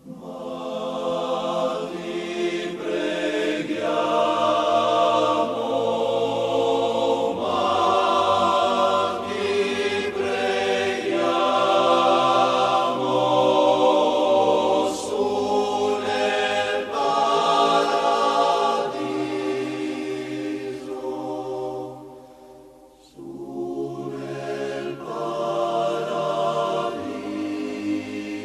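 Choir singing slow, sustained chords, the harmony shifting every couple of seconds, with a short drop in loudness about two-thirds of the way through.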